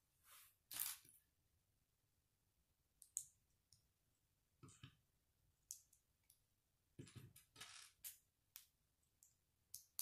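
Small plastic Lego bricks being handled and pressed together: sparse, faint clicks and brief rustles, coming closer together about seven to eight seconds in.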